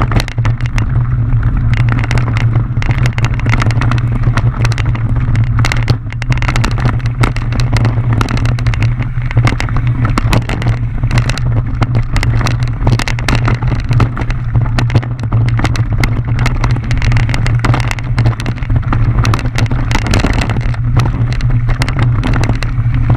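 Mountain bike descending a rough downhill trail: steady wind rumble on the microphone with continual rattling and knocking from the bike over roots and rocks.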